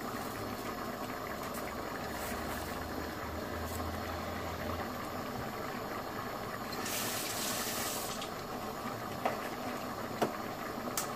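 Vegetable biryani simmering uncovered in an aluminium pot on a gas stove: a steady bubbling hiss, briefly louder and hissier about seven seconds in, with three light clicks near the end.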